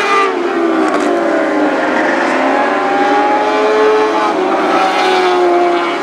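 Several Lightning Sprint race car engines running together at racing speed, each one's pitch rising and falling as the cars accelerate and lift through the turns.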